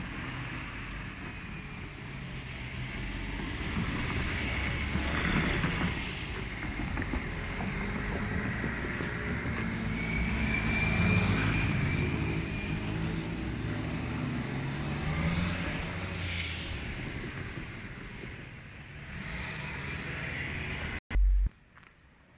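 Seibu Line train running through the level crossing: a long steady rumble of the train, with a thin high squeal of wheels on the rails about halfway through. Near the end a short loud thump, and then it goes quiet.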